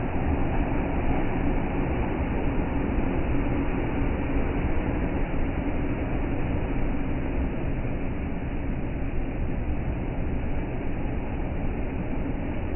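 Ocean surf breaking on a sandy beach: a steady, even roar heavy in the low end.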